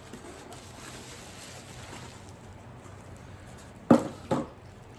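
Faint rustling of packaging being unwrapped by hand, with two short, loud crackles about four seconds in as the bubble wrap is handled.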